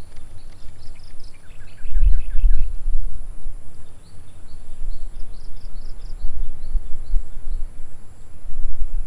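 Wind buffeting a chest-mounted action camera's microphone in uneven low gusts, strongest about two seconds in. A bird calls over it in quick runs of short chirps.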